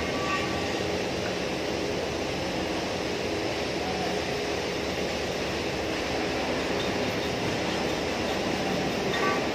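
Steady mechanical drone with a faint hum, with a light clink near the start and another near the end.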